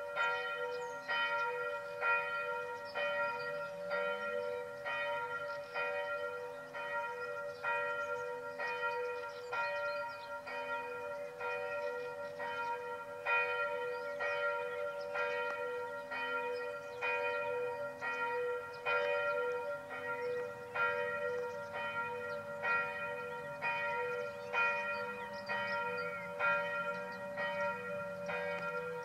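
Bells of the Benediktbeuern abbey church ringing together. Strokes fall about twice a second in an uneven pattern over a continuous overlapping hum of bell tones.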